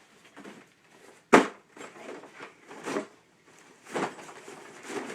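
A cardboard shipping box is brought in and set down with one sharp thump about a second in, then handled with softer scraping and rustling noises.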